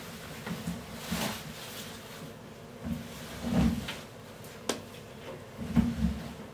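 Clothes being pulled and pushed through the open door of a front-loading washing machine: rustling fabric and several dull knocks against the drum and door, with one sharp click about two-thirds through.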